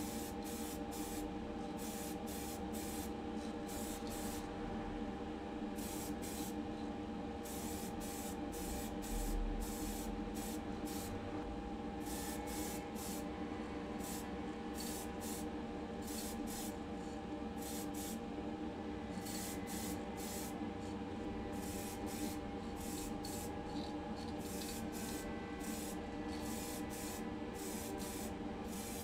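Aerosol rattle can of AK Interactive grey primer spraying in many short bursts of hiss, some in quick succession, over a steady hum.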